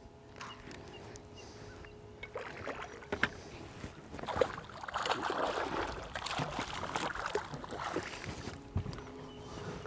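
Water splashing and sloshing against a fishing boat, with scattered knocks and clicks. The splashing grows louder about halfway through and eases off near the end.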